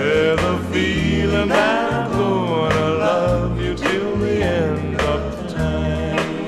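Vinyl LP record of a 1960s pop song playing: singing voices gliding over bass and a steady beat.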